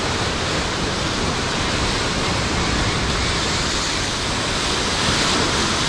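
Sea surf churning and washing against the rocky base of a cliff: a steady, even rushing.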